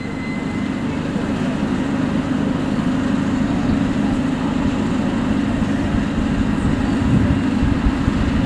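Train running with a steady rumble and a low hum.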